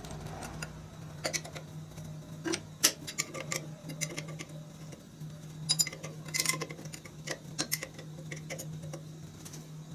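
Hand tools working on the engine's mounting bolts: scattered metallic clicks and clinks of wrench on metal over a steady low hum.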